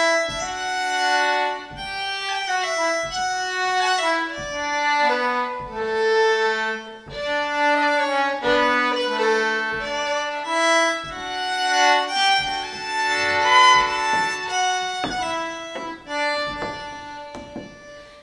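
Irish traditional ensemble of fiddles, concertinas and button accordion playing a tune together in a steady rhythm, with the fiddle leading. The tune dies away near the end.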